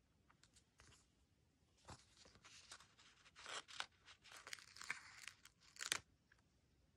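A sticker being peeled off its backing sheet with tweezers, with the sheet crinkling in the hands: dry, crackly peeling and rustling that starts about two seconds in and ends in a sharp crackle near the end.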